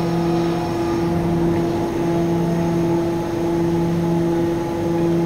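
Heavy machinery at a wagon tippler in a coal-handling plant running with a steady, loud hum. A steady mid tone sits over a lower tone that dips and swells about every second and a half.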